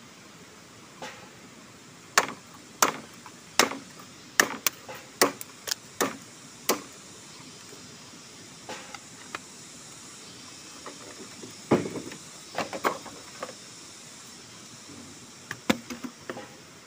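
Machete chopping at a bamboo pole: a quick run of about nine sharp strikes, a pause, then two short bursts of chops near the end, over a steady faint hiss.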